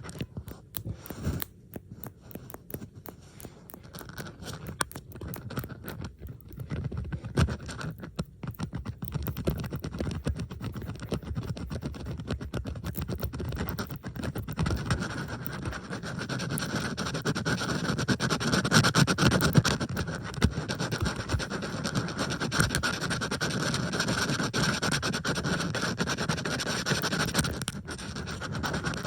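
Bobby pins scratched and clicked in several layered tracks: a dense, continuous run of small metal scratches and clicks that grows louder about halfway through.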